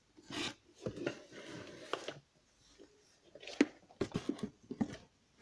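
An electric chainsaw, not running, being handled and turned over on a cardboard box: its plastic body gives rustles and scrapes, then a quick run of sharp clicks and knocks about three and a half to five seconds in.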